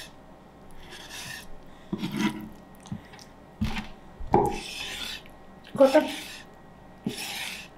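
A chef's knife slicing through raw skinless salmon on a wooden cutting board: about six short slicing strokes, roughly one a second, with a couple of knocks of the blade on the board around the middle.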